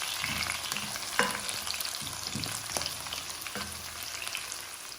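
Onions and garlic sizzling as they fry in a pan, with a utensil stirring and knocking against the pan about five times.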